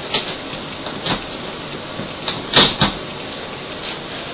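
Scattered sharp plastic clicks and clacks of a YJ 3x3 speed cube being turned in the hands, the loudest pair about two and a half seconds in, over a steady background hiss.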